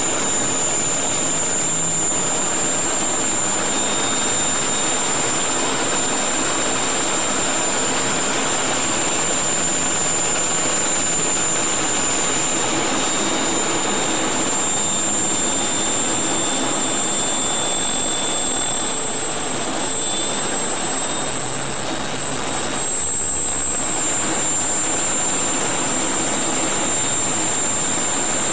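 Steady in-cockpit noise of a Mirage III in flight: the rush of its SNECMA Atar 09C turbojet and airflow, with a thin high whine that rises slightly in pitch a little after halfway and settles back.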